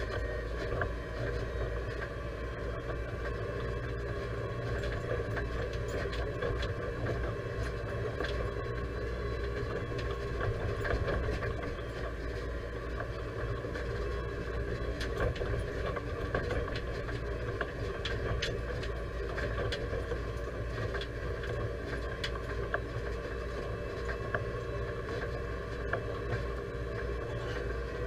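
Deutz-Fahr 5100G tractor engine running steadily at travel speed, heard from inside the cab, with occasional short knocks and rattles over the rough track.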